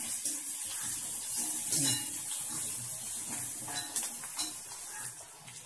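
Sliced onions sizzling as they sauté in hot oil in a kadai, stirred and scraped with a slotted metal spatula that clicks against the pan now and then.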